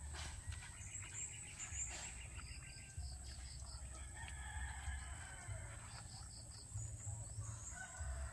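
A rooster crowing faintly, with short chirps of small birds repeating every couple of seconds.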